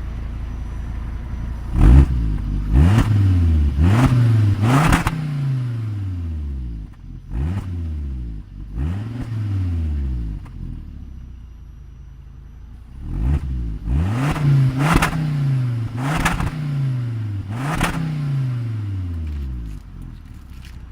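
Volvo XC70 2.4T's turbocharged inline-five with its stock exhaust, idling and then blipped repeatedly: sharp revs that rise and fall back to idle, first a quick run of about four, then two slower ones, then another run of about five near the end.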